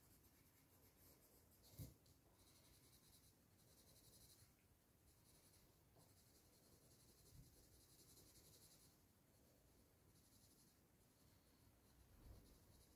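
Very faint scratching of a colored pencil shading on paper, with a light tap about two seconds in.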